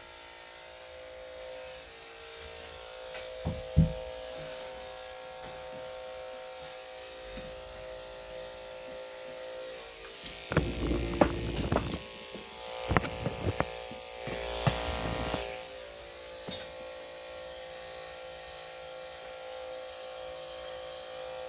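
Electric dog grooming clippers running steadily with a hum, the blade freshly oiled. A sharp knock comes a few seconds in, and around the middle there are several seconds of knocks and scuffling clatter.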